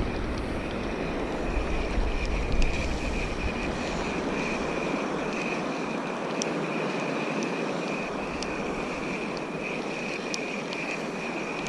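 Sea surf washing steadily on the shore, with a steady high-pitched tone running through it and a few sharp ticks.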